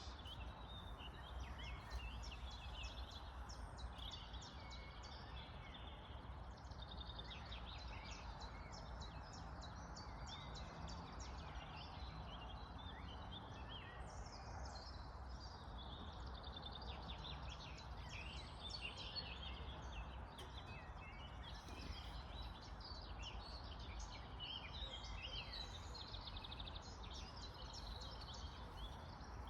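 Several birds chirping and singing, many short calls overlapping throughout, over a faint steady low rumble.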